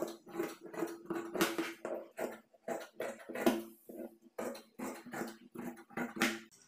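Scissors cutting through blouse cloth: a quick, even run of snips, about four a second.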